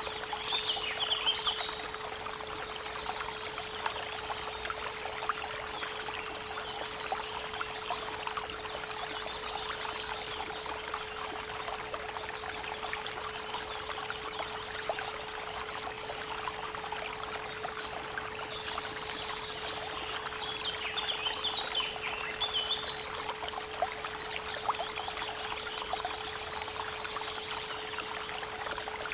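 A steady 432 Hz pure tone hums under the running and trickling of a creek. Birds sing in short phrases near the start, about halfway through, and again in the last third.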